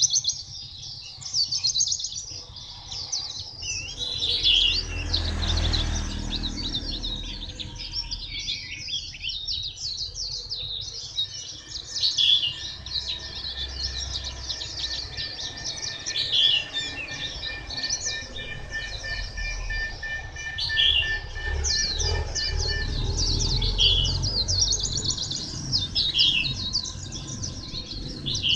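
White-eye singing a long, fast, twittering song of rapid high chirps and trills, almost without a break.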